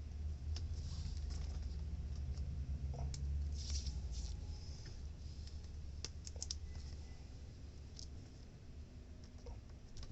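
Scattered light clicks and scrapes of small tools and parts being handled, a cluster about three seconds in and another about six seconds in, over a steady low hum.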